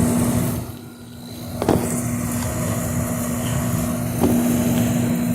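Window air conditioner running with a steady hum and a held tone, dipping briefly about a second in, with two light knocks partway through.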